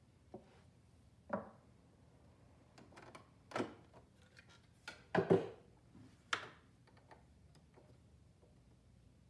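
Scattered hard plastic knocks and clicks as the removable extension table is pulled off a Janome 2212 sewing machine's free arm and parts are set down on a table, with the loudest double knock a little past halfway.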